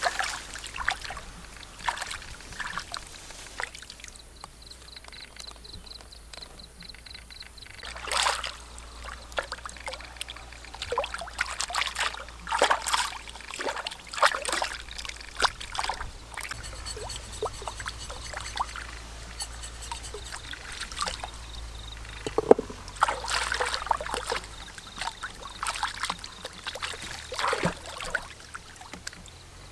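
Hands splashing and swishing a slab of raw pork belly in shallow stream water, with irregular splashes and trickles as the meat is washed.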